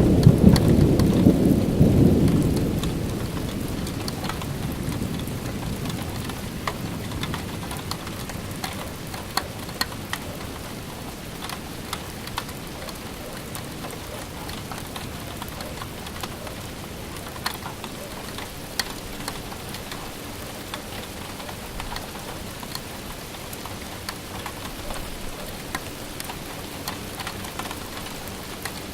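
A thunderclap rumbling loudly at the start and dying away over the first few seconds, then steady rain with individual drops ticking on a surface.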